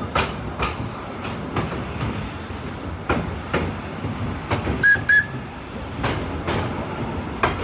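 Train wheels clicking over rail joints while rolling, the clicks coming in pairs every second or two over a steady rumble. Two short, sharp squeaks come about five seconds in.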